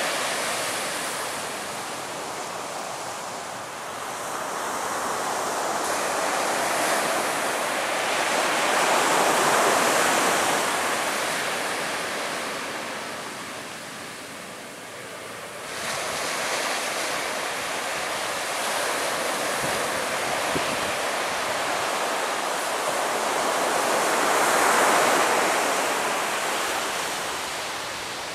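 Surf washing onto the beach, a steady rushing that swells and fades, loudest about ten seconds in and again near the end.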